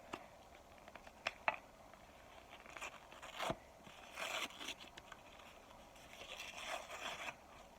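Scraping and crunching from handling a crumbly block of microwaved cornstarch, in short scattered bursts, with a few sharp clicks in the first second and a half.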